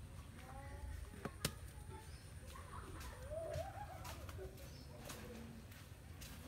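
Faint short animal calls: a few brief chirps and one rising-and-falling call a little over three seconds in. A single sharp click comes about a second and a half in, over a steady low rumble.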